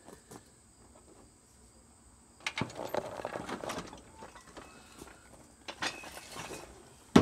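Clatter and scattered metal knocks as the mower is worked off its jack: a rattling stretch of about a second and a half a couple of seconds in, a few lighter clicks later, and a sharp click near the end.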